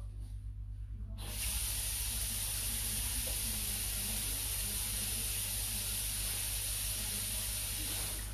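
A steady hiss that starts suddenly about a second in and cuts off sharply near the end, over a low steady hum.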